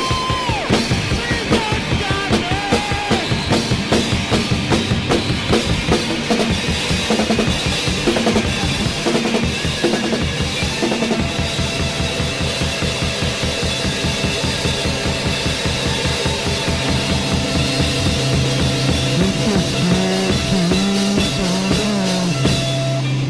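Rock band playing an instrumental passage: a drum kit keeps a steady, busy beat under long held notes.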